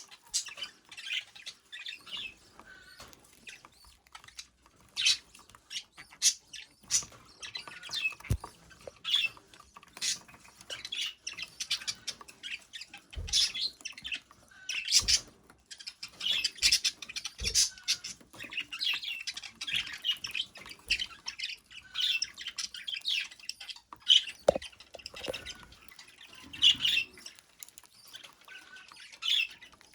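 Budgerigar chattering and chirping in quick, rapid bursts, with a few sharp taps or clicks in between.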